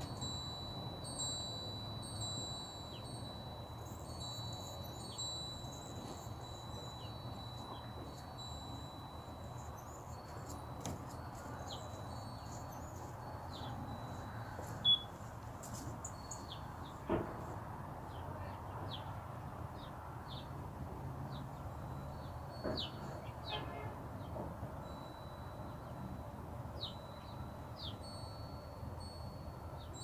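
Sparrows chirping now and then, short high falling chirps scattered through, over a steady high ringing tone that keeps breaking off and coming back. Two sharp clicks near the middle, the first the loudest sound.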